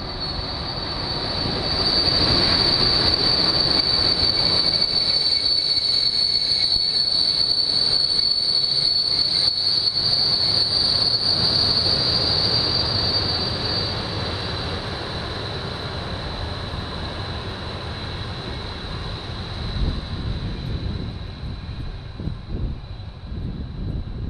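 EP07 electric locomotive and its passenger coaches rolling past, wheels running on the rails with a steady high-pitched wheel squeal. The squeal and rumble are loudest for the first half, then fade as the train moves away.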